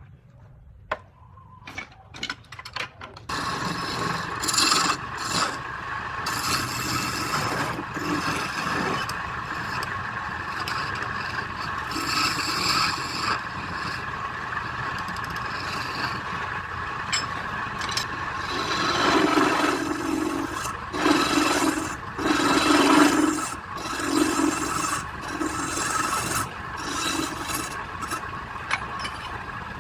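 A few clicks, then about three seconds in a steady machine hum starts and wood is scraped and rubbed continuously, with a series of heavier strokes past the middle. This fits wood being worked against a workpiece spinning on a wood lathe.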